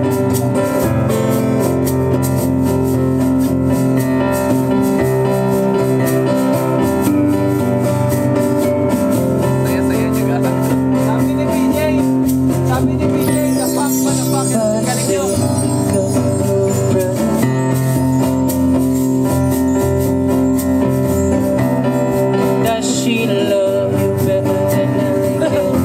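Live acoustic band playing a song: strummed acoustic guitar and electric keyboard chords over a cajon beat, with a man singing.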